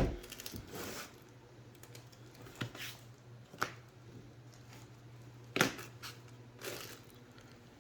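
A sharp knock as the space heater is laid down, then scattered light clicks and knocks of handling the heater and its packaging. A faint steady low hum sits under them and stops about five and a half seconds in.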